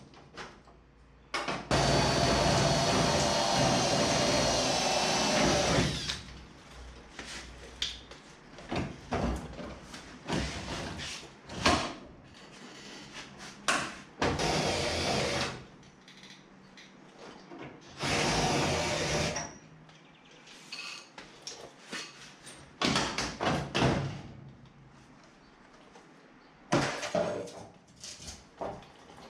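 A handheld power tool runs steadily for about four seconds, then in shorter bursts, between scattered knocks and clatter of work on the car body.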